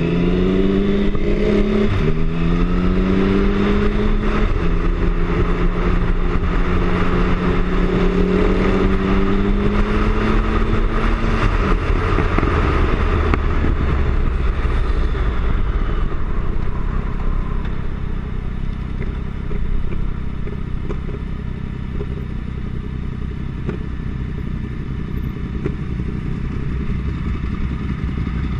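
Triumph Speed Triple's three-cylinder engine from on board: it accelerates with two upshifts in the first five seconds, holds a steady cruise, then is rolled off and settles to idle at a stop after about 18 seconds. Wind rushes over the microphone while the bike is moving.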